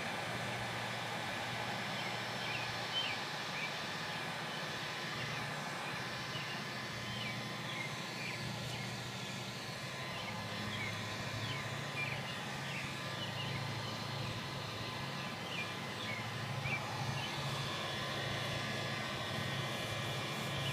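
Electric heat gun running steadily, its fan and blower giving an even hum and rush of air as it heats wax paste into canvas. Short high chirps sound over it now and then.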